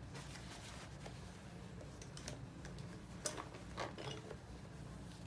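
Light clicks and taps of plastic acrylic paint tubes being handled and set down on a wooden tabletop, with two louder knocks a little past the middle.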